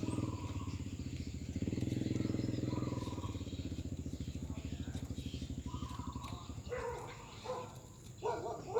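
Zebra dove calling in short pitched notes, over the rapid low throb of a motorcycle engine running that fades away over the first six seconds; from about seven seconds in, the dove's broken cooing stands out on its own.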